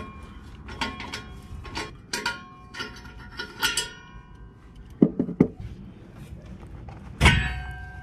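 Metal clinks and taps as a tool works the clamp on a steel exhaust tip, several of them ringing. A few dull knocks come about five seconds in, and a loud metal clang with a long ring comes near the end.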